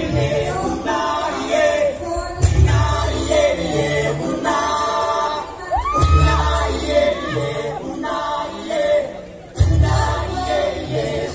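Music with a group of voices singing, played loud over a stage loudspeaker system, with a deep bass note about every three and a half seconds. A single voice slides upward about six seconds in.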